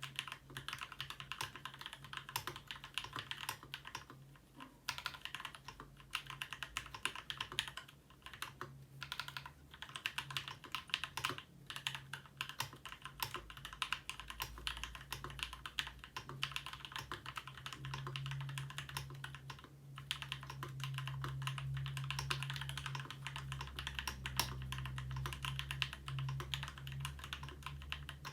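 Continuous fast typing on a Ramaworks M60-A custom 60% mechanical keyboard with Gateron Black Ink linear switches, lubed with Krytox 205g0 and filmed, the case fitted with an internal dampener. The key clicks run densely, with a few brief pauses.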